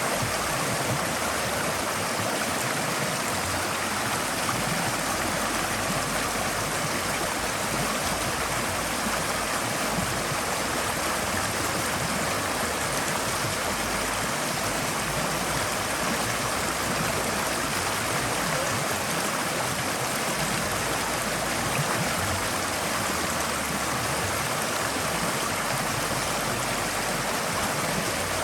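Forest stream flowing steadily, a continuous rush and babble of water over stones.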